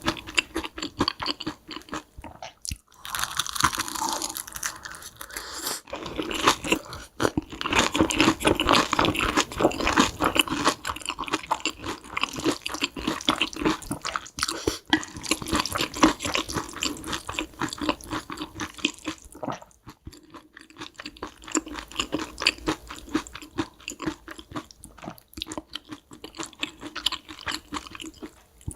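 Close-miked mukbang eating: a person chewing and crunching food, with quick wet clicks and smacks packed closely together, broken by a few short pauses.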